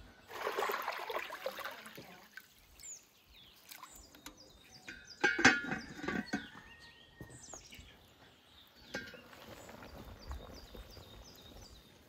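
Birds chirping, with a rustling scrape near the start and a loud cluster of knocks and clatter around the middle.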